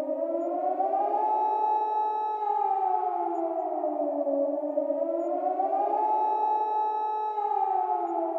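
Warning siren wailing: its pitch rises slowly, holds high for about a second, then falls, twice.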